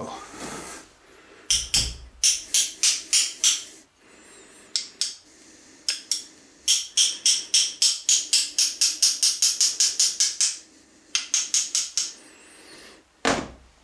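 Small hammer tapping a snug-fitting square copper bar into a steel slot: runs of quick, light, ringing taps at about five a second, broken by short pauses, with one duller knock near the end.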